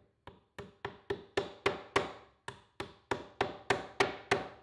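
Small hammer tapping walnut plugs into countersunk screw holes in a wooden drawer side: a quick run of sharp taps, about three a second.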